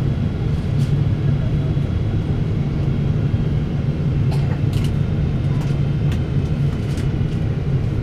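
Steady cabin noise inside a Boeing 777-300 in flight: a low, even rumble of engines and airflow, with a few faint clicks.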